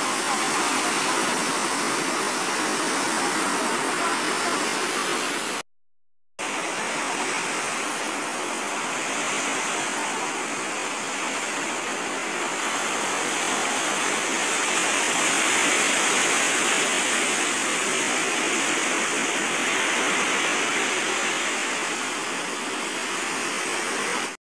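Sea surf breaking and washing up a beach: a steady rushing roar of waves that drops out completely for under a second about six seconds in.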